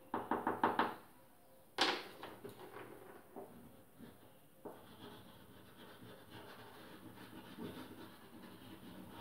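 Crayon scribbling on a paper picture stuck to a blackboard. A quick run of back-and-forth strokes comes in the first second, then a sharp knock about two seconds in, then quieter, steady rubbing.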